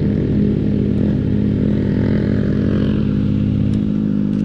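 Motorcycle engine idling steadily, with a change in its low note about four seconds in.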